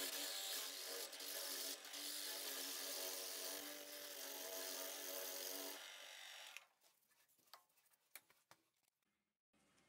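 Small benchtop milling machine drilling the tap hole for an M10 bolt in a metal block: steady motor whine and cutting noise of the drill bit. The motor winds down and stops about six seconds in, followed by a few light clicks.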